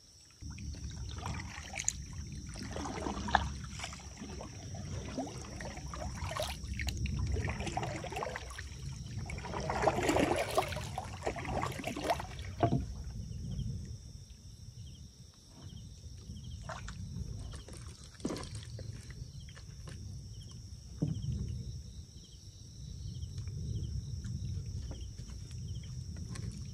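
Water splashing and sloshing, with scattered knocks and a low rumble from movement through the water. The splashing is heaviest for a few seconds around the middle.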